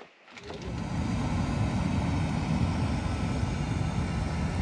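Handheld leaf blower running steadily, blowing air into a wood fire to fan the flames up: a steady rushing roar that comes in about half a second in.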